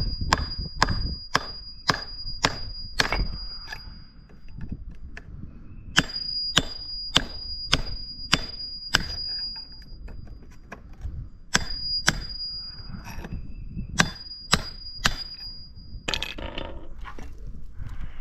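Hammer striking a steel chisel to chip thin-set pavers off a concrete pad: sharp metallic strikes about two a second, each ringing, in several runs with short pauses. Near the end, a rougher scraping clatter of concrete without the ring.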